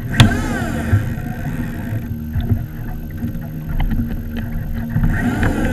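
Ocean water sloshing against a fishing kayak's hull, with wind on the microphone; a sharp knock about a quarter second in and a few light clicks in the middle.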